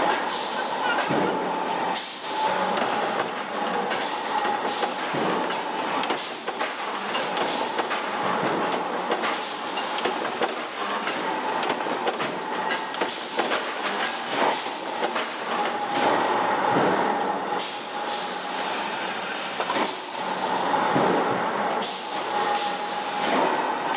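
Sheet-metal press shop din: steady machinery noise with a high whine that fades in and out, and frequent sharp metallic clanks as steel sheets are handled.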